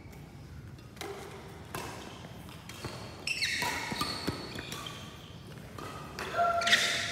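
Scattered taps and knocks on an indoor badminton court between points. A short high-pitched sound comes about three seconds in and a louder one near the end.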